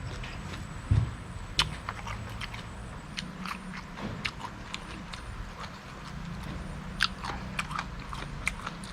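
A person chewing crunchy pork ear and face cartilage, with irregular crackling crunches between the teeth; a few are louder.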